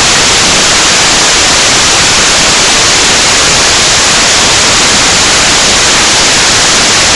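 Loud, steady static hiss, an even white-noise rush with no tone or rhythm in it.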